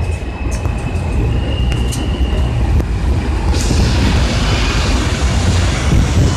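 New York City subway trains on an elevated line: a steady low rumble of wheels on the track as an R160A-1 J train pulls out, with a thin high squeal in the first half. A hiss sets in suddenly just past halfway and carries on.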